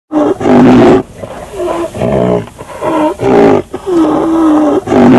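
Recorded rhinoceros calls: a run of about seven deep, pitched grunting calls, one of them longer and held steady about four seconds in.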